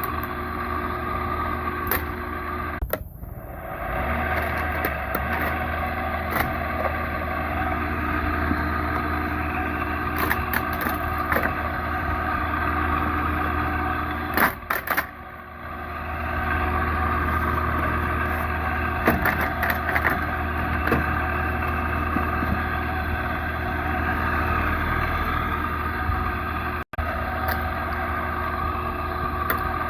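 Old window air conditioner running: a steady hum from its compressor and fan, with scattered clicks and rattles. The sound drops out briefly about three seconds in and again about halfway through, then comes back.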